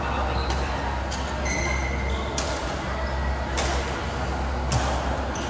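Badminton rally: sharp racket strikes on the shuttlecock roughly once a second, with short squeaks of court shoes on the floor between hits, over a steady low hum.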